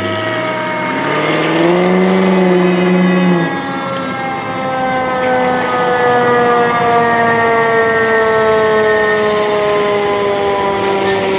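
Fire truck siren wailing, its pitch falling slowly and steadily. A deep, loud horn blast rises about a second in and holds for about two seconds.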